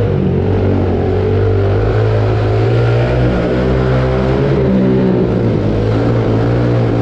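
Pit bike engine running hard at a steady pitch as the bike is ridden around a curved concrete wall, cutting off abruptly near the end.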